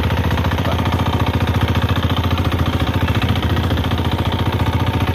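A fishing boat's engine running steadily with a fast, even pulsing beat.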